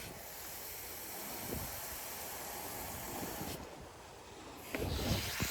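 Garden hose spraying water, a steady hiss that drops out for about a second near the end and then starts again.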